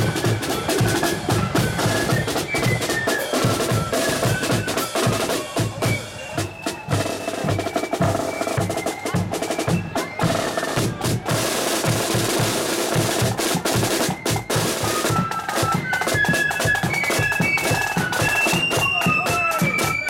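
Marching flute band playing: flutes carrying a quick, stepping tune over rolling snare drums and a bass drum. The flutes thin out in the middle, leaving mostly drums, and come back near the end.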